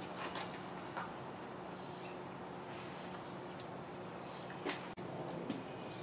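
Quiet workshop room tone with a steady low hum, broken by a few light clicks and knocks as a wood glue bottle is picked up and handled, the sharpest about three-quarters of the way through.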